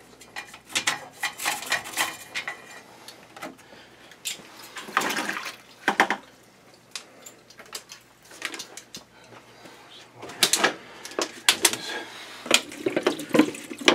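Firm poly-bristle brush scrubbing wet flue passages inside a condensing boiler's stainless steel heat exchanger. It comes as irregular bursts of scraping and sloshing water, with short pauses between.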